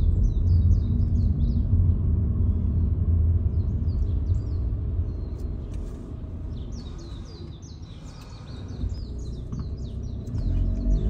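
Low rumble of a car's engine and tyres that dies down as the car slows to a stop in traffic, then picks up again near the end. Over it, birds chirp with quick strings of short falling notes, plainest while the rumble is low.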